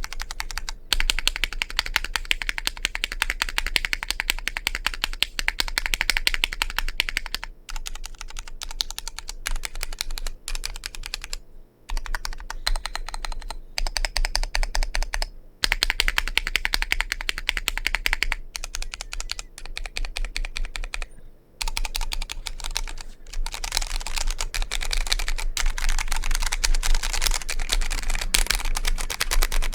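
Vortex POK3R mechanical keyboard with Cherry MX Red linear switches being typed on quickly and steadily, a dense stream of keystrokes broken by a few short pauses.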